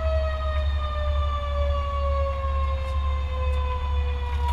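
Mechanical siren winding down, one steady tone falling slowly in pitch, over the steady low rumble of the fire engine's idling diesel.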